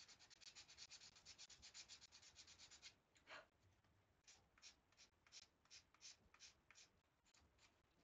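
A small wooden model-kit part being sanded by hand: a fast run of short back-and-forth strokes for about three seconds, then one longer stroke and slower, separate strokes.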